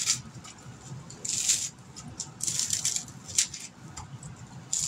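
Crisp lettuce being torn apart by hand into a bowl: a crunchy crackle in short bursts, about four of them.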